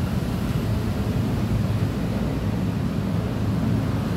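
A steady low rumble that never changes, with nothing standing out above it.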